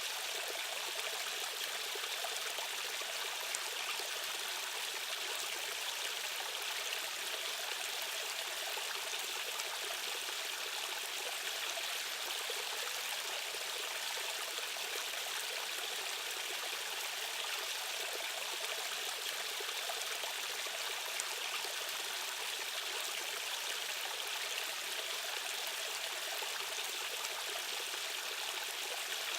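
Stream water rushing and splashing over rocks: a steady, even rush of flowing current.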